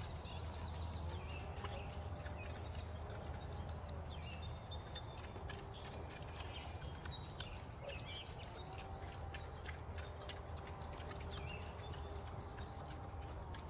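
Pigs eating their feed: a steady run of irregular crunching, clicking chews. Birds chirp now and then over a low steady hum.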